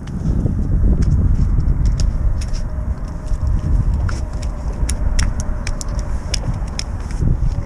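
Uneven low rumbling, like wind buffeting the microphone, with scattered sharp clicks and rattles throughout.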